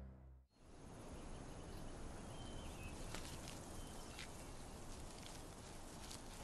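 Faint, steady outdoor meadow ambience after a brief moment of near silence, with a few short, faint high chirps.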